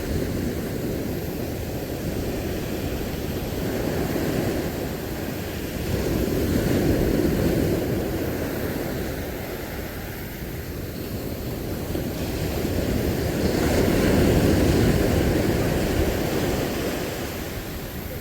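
Sea waves washing in on the shore, with a steady wash that swells twice, about seven seconds in and again around fourteen to fifteen seconds, and eases between.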